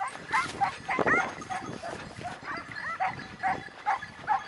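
Hounds yelping and baying in quick, high, repeated calls, several a second, the way hunting dogs give tongue when they are on a hare's trail.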